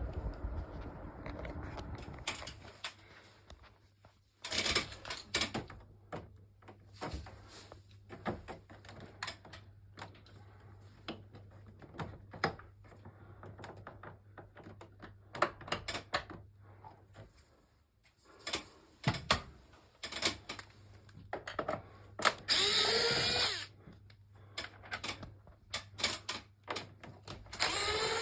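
Small cordless power screwdriver whirring in short bursts, spinning up in pitch, among many clicks and knocks of parts being handled, typical of taking apart an air conditioner for cleaning.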